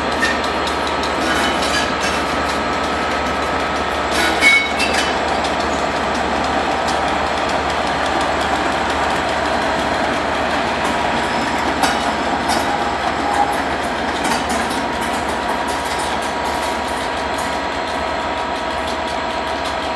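Class 37 diesel-electric locomotive 37421 and its English Electric V12 engine running steadily as it hauls a rake of coaches past, the engine note holding an even pitch, with occasional sharp clicks from wheels and rail.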